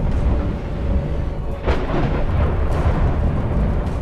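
Dramatic film score over a deep, steady rumble, with a sudden crash about a second and a half in and a lighter hit a second later.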